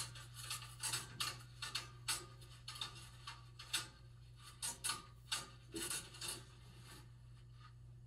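Light scraping and clicking of hands working on the metal burner parts inside a gas furnace, in irregular short strokes that stop about seven seconds in. A steady low hum runs underneath.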